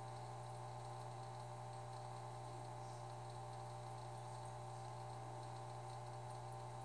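Aquarium pump running: a steady low hum with faint trickling water.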